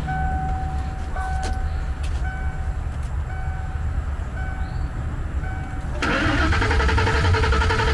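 Ford Coyote 5.0 V8 in a 1995 F-150 turning over on the starter, then firing and running about six seconds in on its first start after the engine swap. A warning chime beeps about once a second while it cranks.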